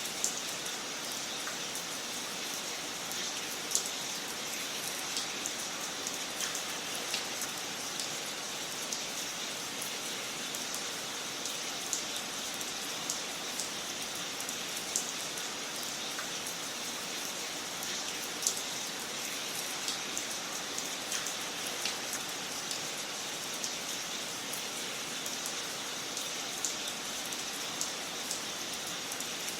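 Wood fire in a fireplace crackling: a steady hiss with irregular sharp pops and snaps scattered throughout.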